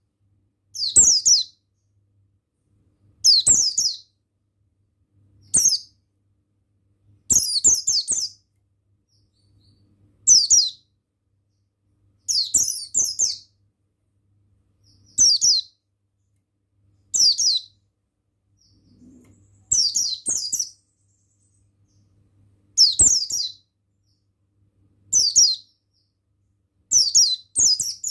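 Pleci buxtoni white-eye singing short, high, twittering phrases of quick gliding notes, one every two to three seconds, with pauses between.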